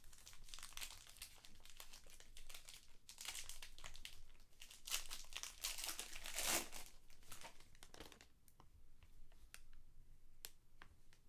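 Foil trading-card pack wrapper being torn open and crinkled by hand. A dense crackle runs for about eight seconds, loudest a little past halfway, then gives way to a few faint clicks of cards being handled.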